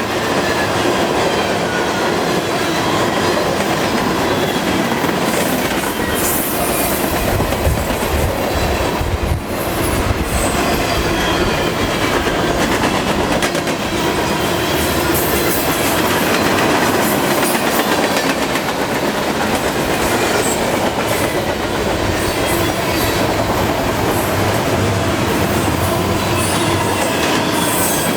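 A long freight train's cars rolling past at about 45 mph: a steady rumble and clatter of steel wheels on rail, with faint wheel squeal drifting in and out.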